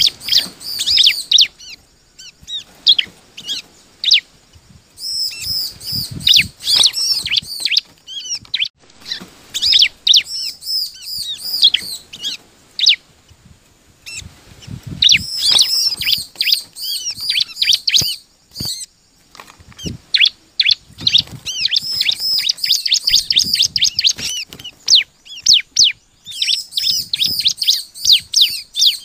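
Bar-winged prinia (ciblek) singing: fast runs of high, sharp chirps in bouts of a few seconds each, with short pauses between bouts.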